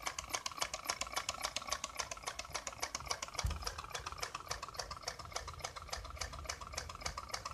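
Homemade soda-can Stirling engine running, its moving parts clicking rapidly and evenly, about five or six clicks a second. A low rumble comes in about halfway through.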